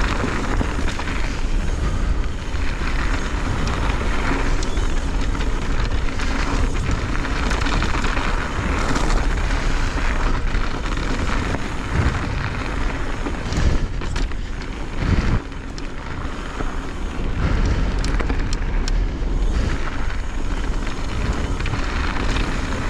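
Pivot Firebird full-suspension mountain bike descending a dirt trail at speed: heavy wind rush over the GoPro microphone, with the tyres and bike rattling over the ground. Two sharp knocks come about two-thirds of the way through.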